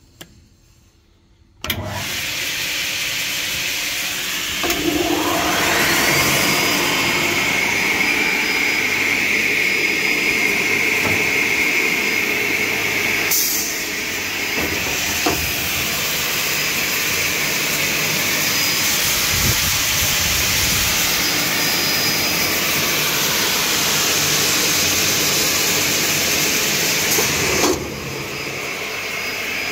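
Graule AS450 facade saw started from its control panel: it comes on suddenly about two seconds in, then the saw motor runs up with a rising whine and runs at speed, a steady whine over a rush of air. Near the end the sound drops sharply to a lower steady running noise.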